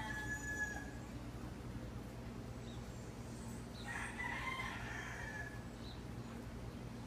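Roosters crowing: the end of one crow in the first second, then a longer crow from about four seconds in, over a steady low hum.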